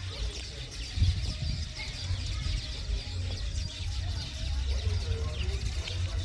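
A colony of weaver birds chattering: many short, overlapping chirps at once, over a low, uneven rumble.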